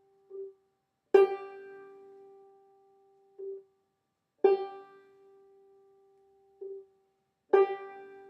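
Banjo played slowly in clawhammer style: three strokes brushed down across the strings, each ringing out and fading. Each stroke is preceded by a soft single-string pluck from the thumb.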